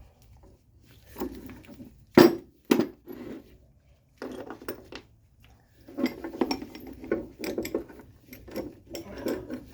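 A coil spring compressor's steel clamps and bolts clinking and clanking as they are handled and fitted onto a strut's coil spring. There are two sharp metal knocks about two seconds in, then a run of rattling clinks from about six seconds on.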